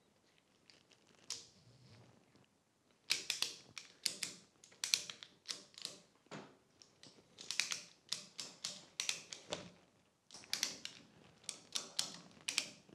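Ratchet strap being cranked to hoist the front of a motorcycle by its handlebar: the ratchet clicks in quick runs, one run per stroke of the handle, with short pauses between. The clicking starts about three seconds in.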